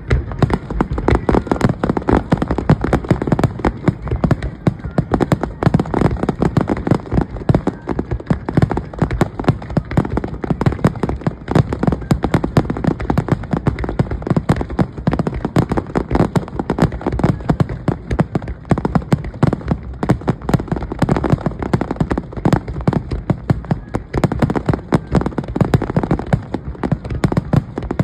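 Fireworks going off in a dense, continuous barrage: many bangs and crackles each second, without a break.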